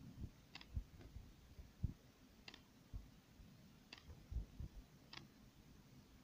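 Near-quiet room with four faint, sharp clicks spaced a second or more apart and a few soft, low knocks; the loudest knock comes a little under two seconds in.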